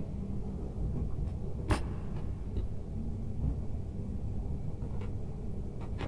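Steady low background rumble, with a few faint clicks and rustles from hands twisting electrical wires together at a plastic junction box. The clearest click comes about two seconds in.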